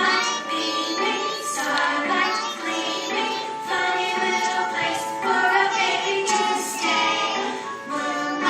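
A group of young children singing a Christmas song together.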